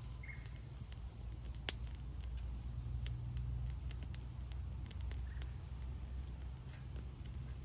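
Wood campfire crackling, with scattered small pops and one sharp, loud pop about a second and a half in, over a steady low rumble.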